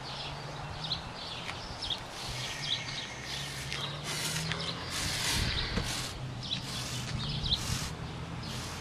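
Small birds chirping again and again in the background, each call a short high chirp, over a low steady hum. A louder rustle of handling and clothing noise comes a few seconds in.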